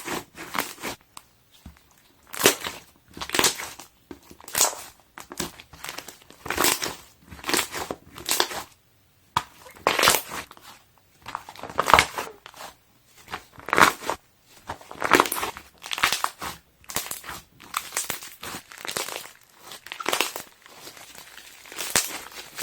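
Slime being pressed and squeezed, with trapped air bubbles popping in crackling, clicking bursts about every one to two seconds.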